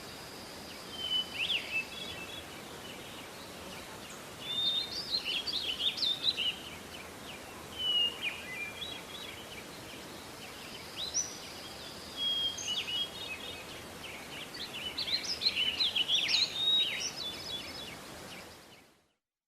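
Several songbirds singing and chirping over a steady outdoor background hiss, in bursts of warbled phrases and short calls. The ambience fades out near the end.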